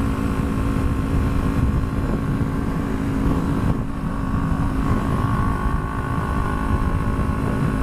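Small motorcycle engine running at a steady, unchanging pitch, with wind rumble on the microphone.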